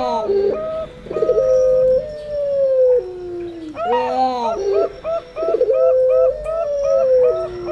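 Puter pelung (ringneck dove) and perkutut (zebra dove) cooing together. Long, slowly falling, drawn-out coos mix with quick runs of short, higher cooing notes, and the pattern comes round again about every four seconds.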